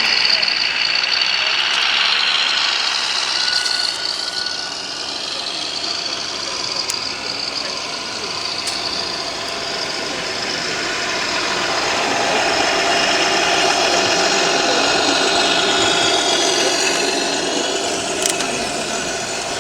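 Steady hubbub of a busy exhibition hall: crowd chatter mixed with the engine sound of radio-controlled model trucks, with a few sharp clicks.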